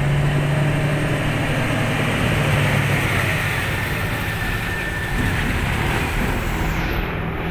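Large diesel dump truck's engine running close by, a steady loud rumble with a low hum that eases off after about three seconds.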